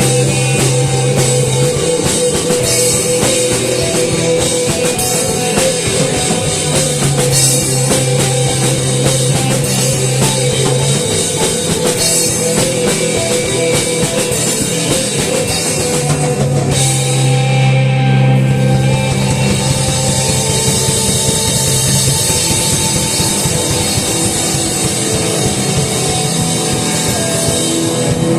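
Rock music with a full drum kit and guitars, loud and steady, with held bass notes changing every few seconds.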